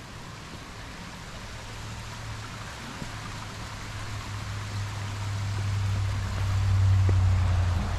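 Steady rushing of a creek and small waterfall, with a low rumble underneath that builds and is loudest about seven seconds in.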